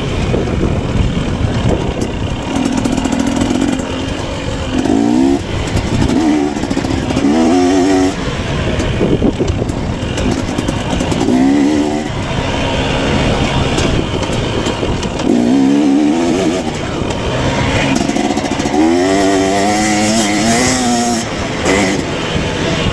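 KTM 250 dirt bike engine being ridden hard, its pitch climbing in several runs and dropping back between them as the throttle is opened and closed, over a constant rough noise.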